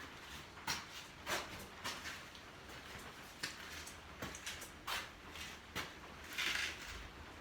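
Light clicks and knocks from hands fitting a motorcycle soundbar and its mounting hardware, about ten separate taps spread out, with a short rustle near the end.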